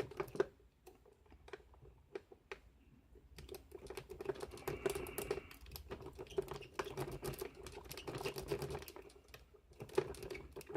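A lock pick rocking in a cheap Chinese-type padlock: quick, irregular small metallic clicks and scratches as the pick works the pins, over a faint steady hum.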